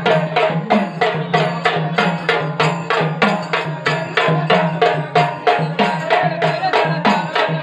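Folk music with a fast, even drum beat over a steady low drone.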